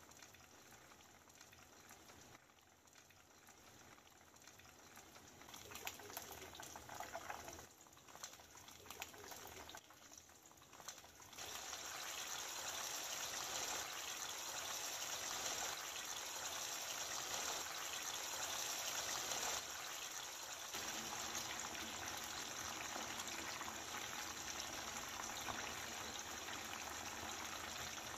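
Chicken pieces deep-frying in hot oil, a steady sizzling and bubbling. The sizzle turns much louder about eleven seconds in, when a fresh batch of raw marinated chicken is frying hard in the oil.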